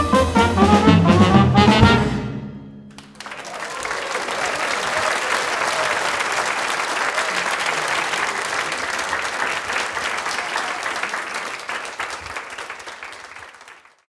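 A swing jazz band with trumpet and tenor saxophone plays its closing phrase, which ends about two seconds in. Then a studio audience applauds steadily, and the applause fades out near the end.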